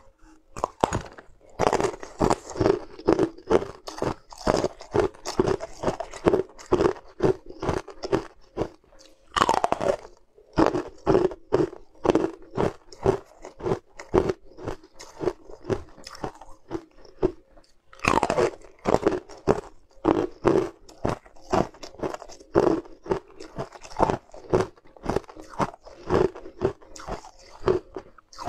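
Ice being bitten and chewed: snowflake-shaped ice pieces crunched between the teeth in sharp crunches, about three a second, with a longer, louder crunch about a third of the way in and again about two-thirds in as new bites are taken.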